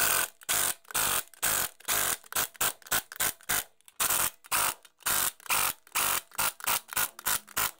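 Pneumatic impact wrench fired in short, rapid bursts, about twenty in quick succession, as it runs the lug bolts in and snugs them on a car's front wheel.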